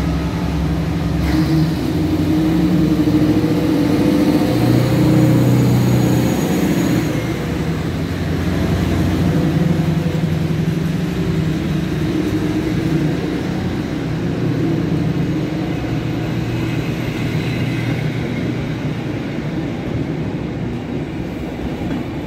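PKP Intercity SU4220 diesel locomotive, a rebuilt SM42, working under power as it pulls away, its engine note strongest in the first half. The passenger carriages then roll past with steady wheel and rail noise.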